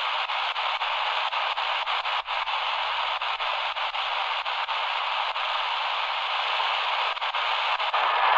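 Shortwave static hiss from the XHDATA D-328 portable radio's speaker as its dial is tuned between stations, crossed by a rapid run of faint clicks and getting a little louder near the end.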